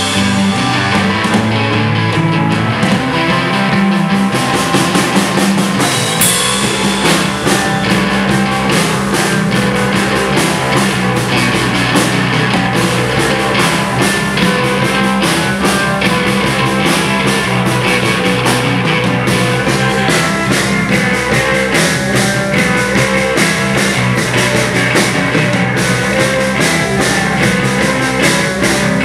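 Live rock band playing loud, with electric guitar and electric bass over a drum kit; a cymbal crash about six seconds in, after which the drums and low end play fuller.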